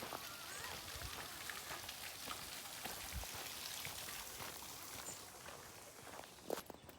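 Footsteps crunching on a woodland path, a dense patter of small crackles, with one sharp snap near the end.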